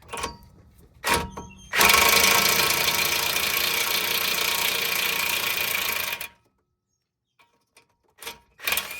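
Impact wrench loosening a tie rod nut: two short blips, then one continuous hammering run of about four and a half seconds that stops abruptly.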